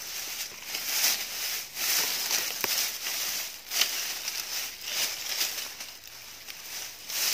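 Dry grass and dead leaves rustling and crackling in repeated swishes about once a second, with a few sharp snaps of stems.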